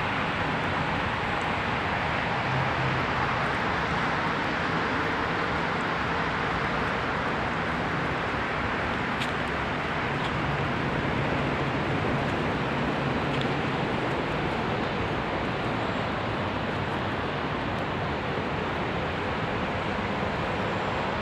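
Steady outdoor street noise with distant traffic, an even rush that holds at one level throughout, with a couple of faint ticks about halfway through.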